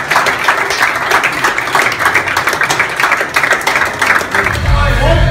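A small group of people clapping fast and steadily. Near the end the clapping gives way to music with a heavy bass beat.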